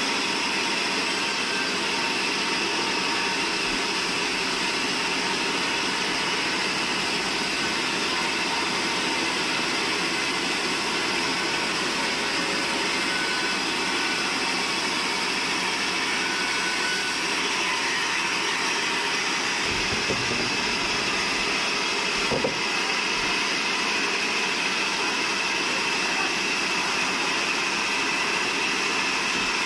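Large vertical band sawmill running steadily with a whine over a noisy hiss as a big log is fed through the blade and sawn lengthwise into a slab. Two short knocks come close together about two-thirds of the way through.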